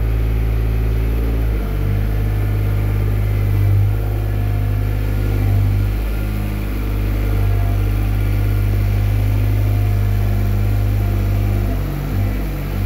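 Kubota TZ-4K-14 engine of a small compact tractor running steadily under load as it pulls a land plane over sand. The engine note shifts slightly about a second and a half in and again near the end.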